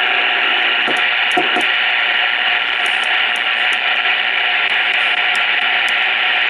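CB radio speaker hissing with steady static, thin and narrow-sounding.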